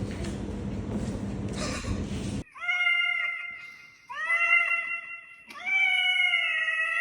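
A cat meowing three times in long, drawn-out calls, the last one wavering and longest. Before the meows there are about two seconds of steady background noise that cut off suddenly.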